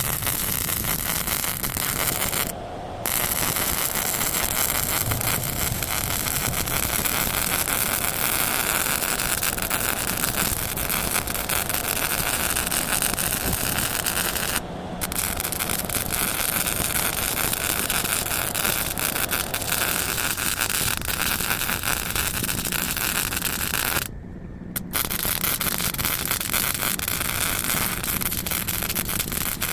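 A metalworking power tool runs continuously with a loud hiss. It cuts out abruptly three times for under a second, while a lower machine hum carries on underneath.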